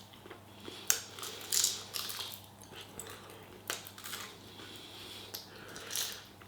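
A person chewing and biting a mouthful of chicken close to the microphone, with irregular crunchy, wet mouth noises.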